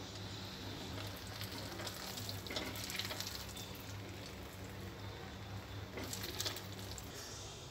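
Soft scraping and stirring of a steel spoon scooping cooked pasta out of a steel kadai into a glass bowl, with a few faint scrapes. Under it run a steady low hum and a soft hiss.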